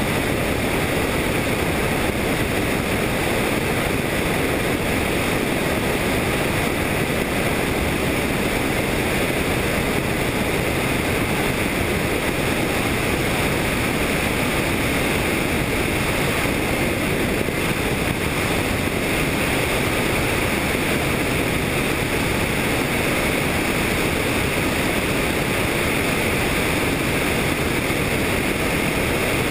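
Steady noise of a helicopter in flight, its engine and rotor mixed with wind rushing over the microphone, unchanging throughout.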